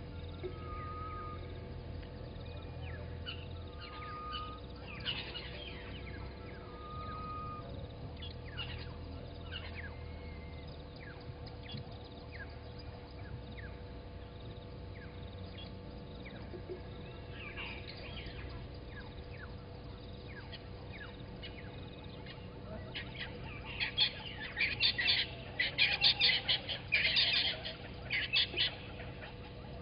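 Wild birds calling at dawn: scattered chirps and a few short whistled notes, then about three-quarters of the way in a loud burst of harsh, rapidly repeated calls.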